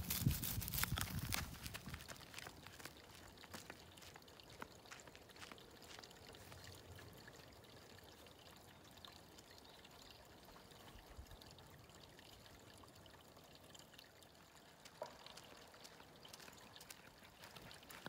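Faint, steady trickle of running water with a few scattered small ticks, after louder rustling and clicks in the first second or so.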